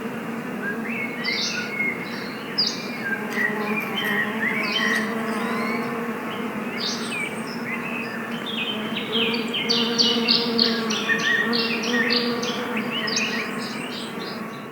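Bees humming in a steady, even drone, with small birds chirping over it; the chirps come thick and fast in the last few seconds.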